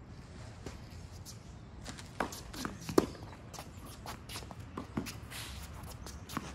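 Tennis rally on a hard court: a racket hits the ball with a sharp crack about three seconds in, the loudest sound, with fainter hits and ball bounces around it and tennis shoes scuffing and squeaking on the court surface.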